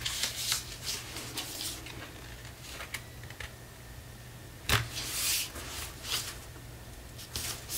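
Heavy cardstock being folded and pressed flat by hand: scattered rustles and soft scrapes of paper, with a sharp knock about four and a half seconds in followed by a brief swish.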